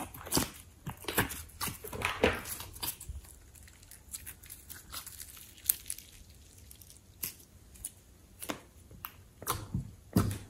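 Thick, sticky slime being squeezed and stretched by hand, giving irregular wet squishes and crackling clicks. They come thickly for the first three seconds, turn sparse after that, and bunch up again near the end.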